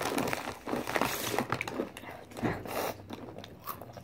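Takis rolled corn tortilla chips being bitten and chewed, with a run of irregular crisp crunches.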